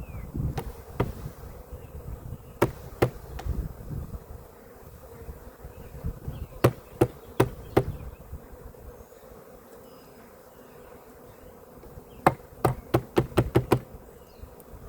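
Swarm of Carniolan honeybees buzzing, broken by groups of sharp knocks as the package is rapped to knock the bees down into the hive: a few early knocks, four more in the middle, and a quick run of about seven near the end.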